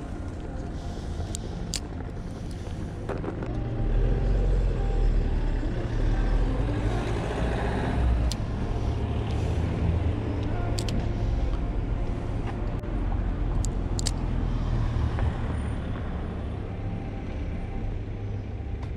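Road traffic beside the water: a heavy vehicle's engine rumbling close by, swelling about four seconds in and easing off near the end. A few short sharp clicks sound over it.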